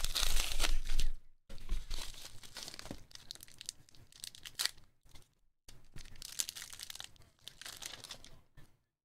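Padded kraft bubble mailer being torn open, loudest in the first second, followed by intermittent rustling and a few light clicks as hard plastic card cases are slid out.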